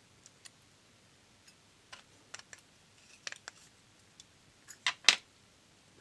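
Small scattered metallic clicks and ticks from lock-picking tools working in a DOM System D lock cylinder that has just been soft-bricked, with a pair of louder clicks near the end.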